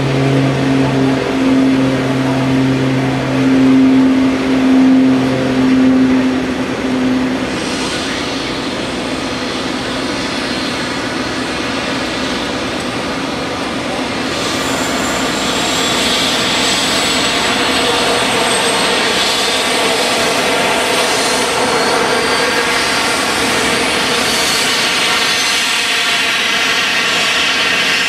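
Embraer 195's GE CF34-10E7 turbofan engines running as the jet taxis in toward the gate. A high whine comes in about halfway through and holds over a steady jet rumble. A low steady two-tone hum is heard in the first several seconds.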